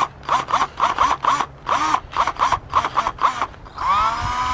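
Cordless drill triggered in short bursts, its motor whining up in pitch and stopping about three times a second. Near the end it is held on and runs at a steady whine.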